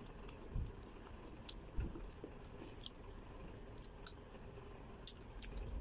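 Faint scattered clicks and two soft knocks from handling a boiled balut duck egg.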